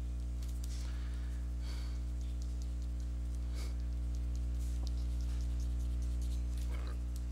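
Short scratching strokes of a 0.3 mm Artline fineliner hatching lines on paper, faint under a steady electrical hum.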